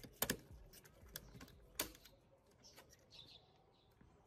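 Light clicks and taps of circuit boards and a plastic radio-cassette casing being handled, with two sharper knocks about a quarter second in and near two seconds in, then only faint handling sounds.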